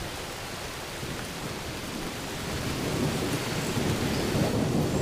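Steady rain with a low rumble of thunder that swells in the second half.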